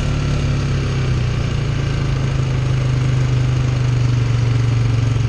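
ATV engine running steadily under way on a dirt trail, heard from the rider's own machine as a loud, even low drone that swells slightly near the end.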